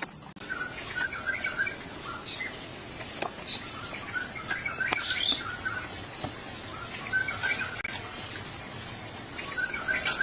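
Birds chirping in short repeated bursts every couple of seconds over a steady outdoor background, with a few faint clicks.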